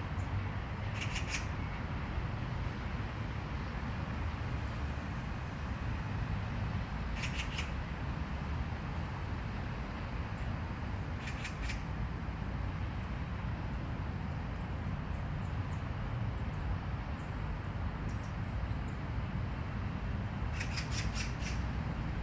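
Steady low outdoor rumble, with four brief bursts of rapid, high clicking spread through it.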